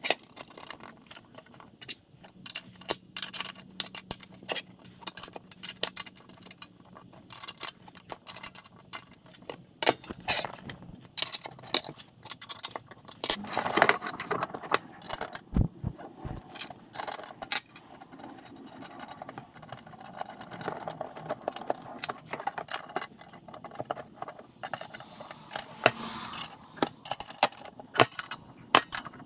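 Steel parts of a spring-loaded lift-top hinge clinking and rattling in irregular small clicks as they are handled and fitted together.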